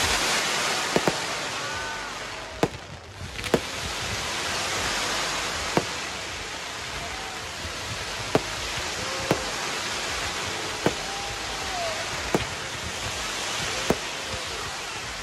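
Daytime fireworks going off: a dense crackling hiss from many crackle effects bursting at once, with about ten sharp single bangs spread through it. The hiss eases for a moment about two to three seconds in.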